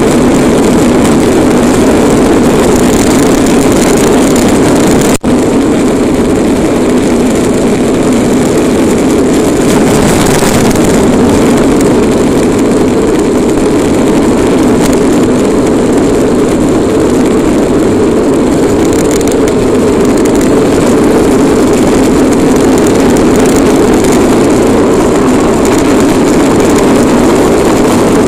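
Bobby-Car rolling fast down an asphalt road: a loud, steady rumble from its wheels on the road surface, mixed with wind. The sound drops out for an instant about five seconds in.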